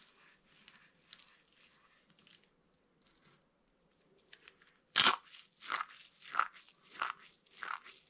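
Dry soap being crushed in the hands: faint crumbling at first, then a sharp, loud crunch about five seconds in as a brittle orange soap curl breaks, followed by a steady run of crunches, about three every two seconds, as the pieces are squeezed into flakes.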